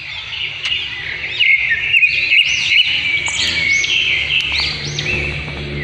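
Bird-song sound effect: many small birds chirping and twittering together in quick, overlapping calls, getting louder about a second and a half in.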